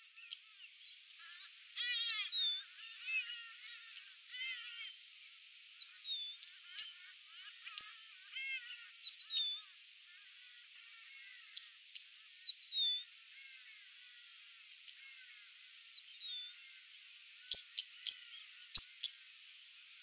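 Three-banded plover calling: repeated short, high, sharp whistled notes, often in quick pairs or threes, with some down-slurred whistles. A lower, rapid chatter comes in about two seconds and again about eight seconds in.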